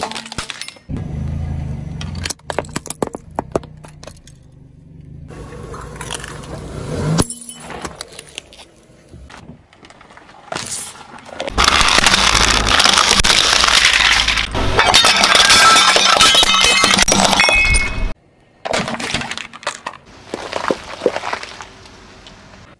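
A car tyre rolls over and crushes a series of objects, with sharp cracking and snapping of plastic. A long, loud stretch of dense crunching and crackling fills the middle.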